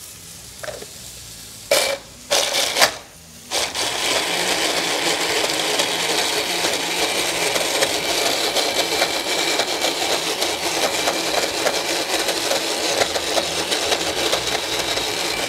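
Electric hand blender with a chopper bowl attachment running steadily, blending basil pesto. A few knocks come about two seconds in, the motor starts about three and a half seconds in, and it cuts off suddenly at the end.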